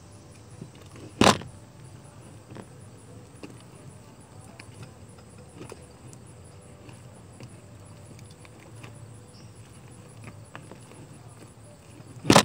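Hands kneading and squishing slime mixed with shaving cream in a plastic bowl: soft squelches and small crackles, with two sudden sharp sounds, much louder than the rest, about a second in and near the end.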